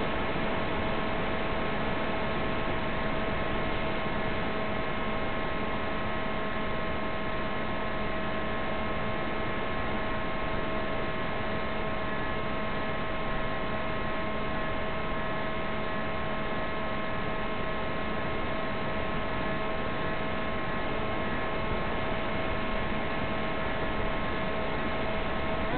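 Electric motor and propeller of a fixed-wing FPV plane running at steady cruise power, carried on the video link's audio as a steady hum of several fixed tones over a constant hiss.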